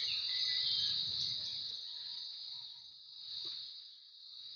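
A steady, high-pitched chorus of insects, rising and falling in level, with a low rumble during the first couple of seconds.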